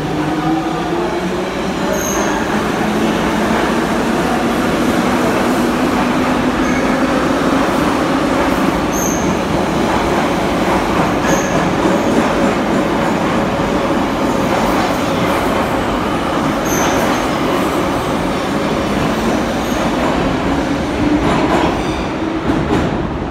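An Em-series (81-501/502/503) metro train pulling out of the station and gathering speed. The motor whine rises in pitch over a steady rumble of wheels on the rails, with about four short high wheel squeals. The sound drops off near the end as the train leaves.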